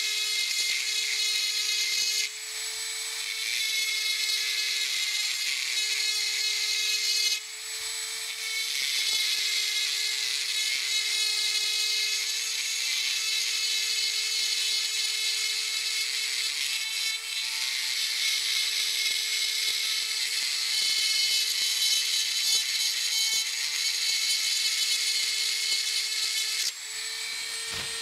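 Dremel rotary tool on a flexible shaft spinning a small carbide burr, grinding an oil groove into cast iron machine ways: a steady high-pitched whine with a grinding hiss. The grinding drops back briefly a few times, about two and seven seconds in, again past halfway, and near the end.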